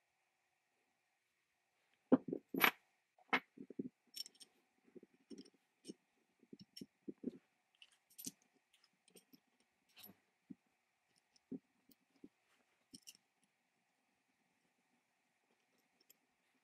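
Small steel band-saw parts clicking and tapping against each other as they are handled and fitted together by hand: a few sharper clicks about two to three seconds in, then a scatter of lighter clicks, then quiet for the last few seconds.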